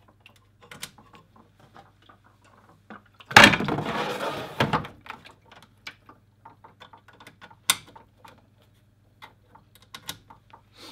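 Plastic dispense bottles being set into an analyser's bottle bay and their cap tubing fitted: small clicks and knocks of plastic. About three and a half seconds in comes a louder noisy rush lasting about a second and a half, and there is a sharp click near eight seconds.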